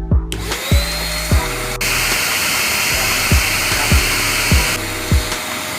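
Hair dryer switched on, its motor spinning up with a rising whine into a steady rush of blown air; about two seconds in a click and the airflow gets louder and hissier, then drops back near the end as the setting switch is changed. The repaired dryer is running again. Background music with a steady kick-drum beat underneath.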